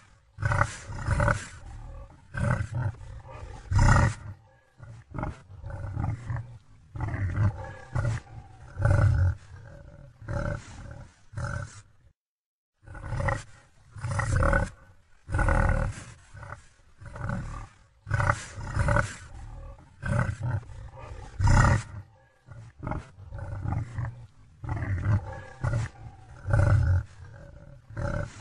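Deep animal growls and roars in repeated bursts every second or two, with a brief complete break about twelve seconds in.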